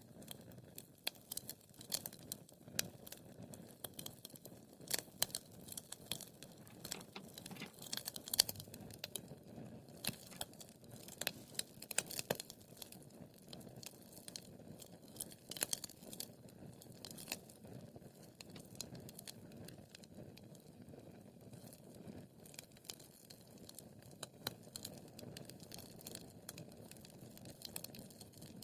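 Wood fire burning in a fireplace: a low steady hiss of flames with irregular sharp crackles and pops.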